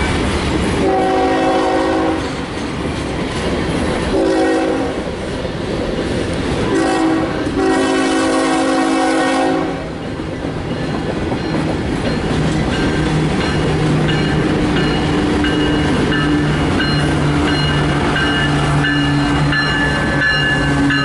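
Freight train rolling past with wheels clacking over the rail joints, while an approaching CSX diesel locomotive sounds its air horn in four blasts, the last the longest. In the second half the locomotive's steady diesel engine hum grows as it draws close.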